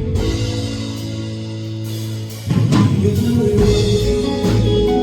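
Live band playing an instrumental stretch of a pop ballad. Held chords ring for about two and a half seconds, then a drum hit brings the full band back in louder.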